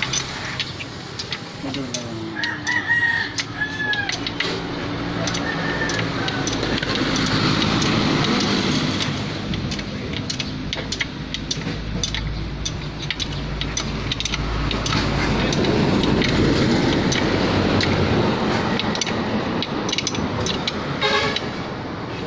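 A rooster crowing, with metal clinks from hand work on a stripped engine block throughout, and a low rumble swelling up and fading in the middle.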